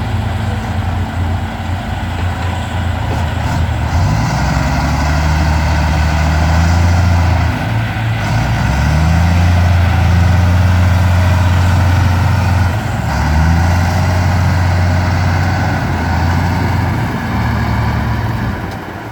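Bulldozer's heavy diesel engine running hard under load, its revs rising and falling, louder from about four seconds in with brief dips about eight and thirteen seconds in.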